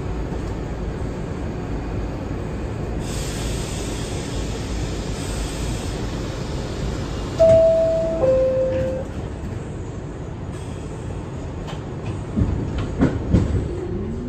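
R62 subway car: a steady rumble, then a two-note descending door chime, then a few thumps, and near the end the traction motors start a rising whine as the train begins to pull away.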